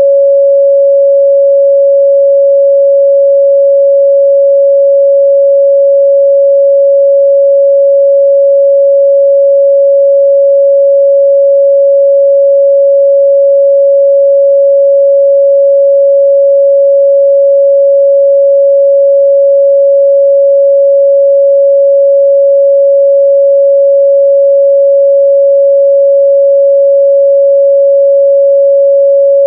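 Steady pure 557 Hz sine-wave test tone, loud and unchanging, with no other sound.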